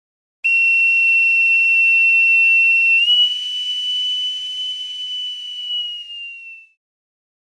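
Boatswain's pipe sounding one long high note. It steps slightly higher about halfway through, then sags in pitch and fades out near the end.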